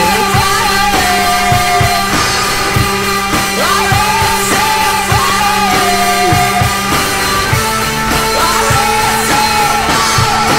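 Rock song with a singing voice over a steady beat.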